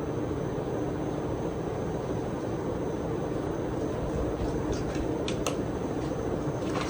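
A 53-inch Casablanca Spirit of Saturn ceiling fan running steadily with four blades, giving a continuous whir with a faint high whine. A couple of brief clicks come about five seconds in.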